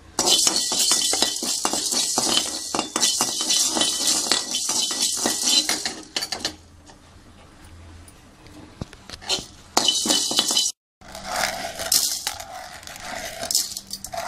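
A metal spoon stirring and scraping black peppercorns around a dry metal kadai as they roast without oil: a dense, rapid rattle of hard seeds on metal for about six seconds. Then a short burst of stirring, followed by scattered lighter clinks.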